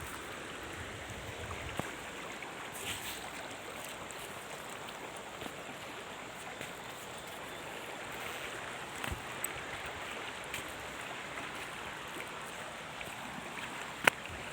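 Water running steadily with an even rushing hiss, as from a spring or small stream. One sharp click near the end.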